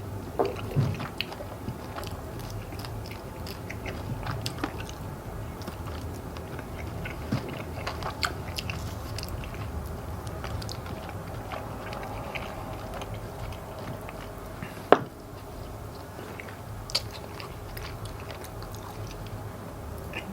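Close-up chewing and biting of fried chicken wings, with scattered small crunches and clicks and one sharp crack about 15 seconds in, over a steady low hum.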